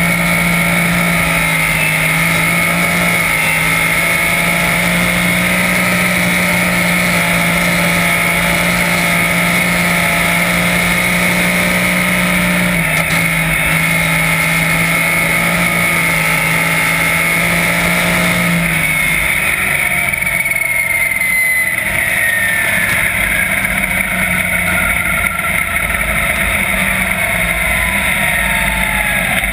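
410 cubic-inch methanol V8 of a winged sprint car, heard from onboard, running hard at a steady high pitch. About two-thirds of the way through the engine note drops and winds down slowly as the car comes off the throttle and slows.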